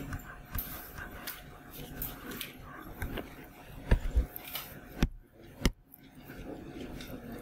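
Stylus scratching and tapping on a writing tablet during handwriting, with three sharp clicks about four, five and five and a half seconds in.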